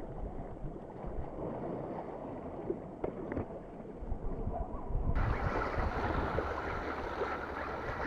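Wind buffeting the microphone over the steady wash of sea water, with more hiss from about five seconds in.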